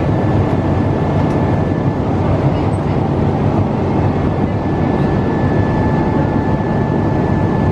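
Steady rushing cabin noise of a Boeing 777 in flight, engines and airflow heard from inside the cabin, with a faint thin high whine that fades out about two seconds in and returns about four seconds in.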